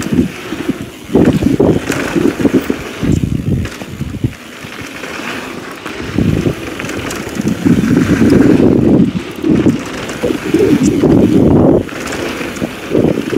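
Wind buffeting the action camera's microphone on a downhill mountain bike at speed, coming in loud gusty rushes that ease off for a couple of seconds near the middle. Under it, tyres rolling on the dirt trail and light rattles from the bike.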